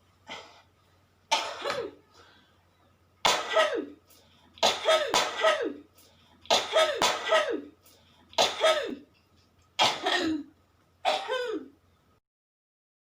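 A person coughing in a run of about nine forced coughs, a few of them in quick pairs. Each cough ends in a voiced tail that falls in pitch. It is an acted demonstration of a type of cough, and it stops about a second before the end.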